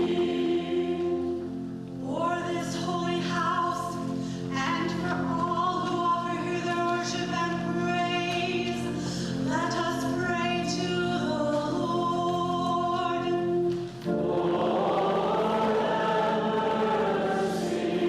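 Many voices singing a hymn together over steady held accompaniment notes, with a brief break about fourteen seconds in before the next phrase begins.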